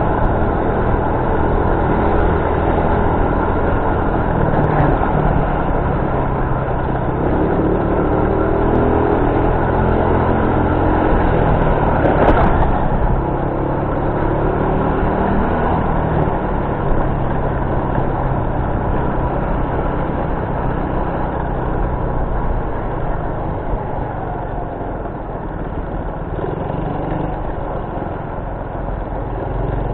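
Motorcycle engine running as it is ridden along a road, its pitch rising and falling with speed, over wind and road noise. A single short knock about twelve seconds in.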